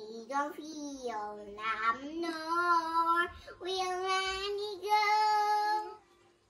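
A young girl singing in long held phrases, stopping about six seconds in.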